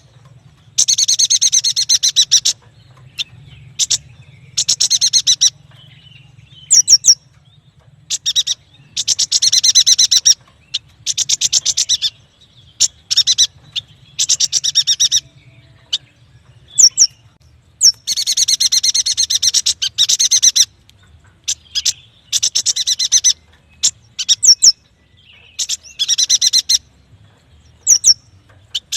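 Yuhina singing: repeated bursts of rapid, buzzy chattering trills, each lasting one to two seconds, with short sharp high notes between them. A faint steady low hum runs underneath.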